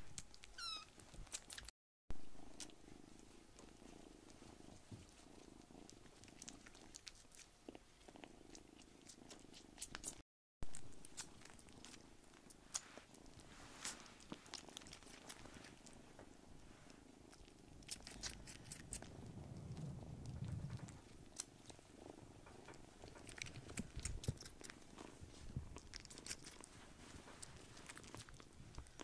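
Kittens purring faintly, with scattered small clicks and rustles from them shifting in the hands.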